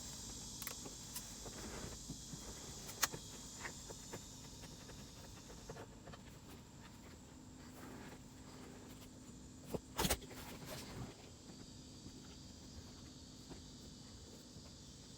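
Small clicks and light knocks of a screwdriver and hands working at screws and plastic interior trim in a car, scattered and irregular, with one louder knock about ten seconds in, over a steady high hiss.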